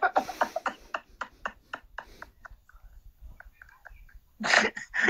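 A quick run of sharp clicks for the first couple of seconds, then faint murmuring, with speech returning near the end.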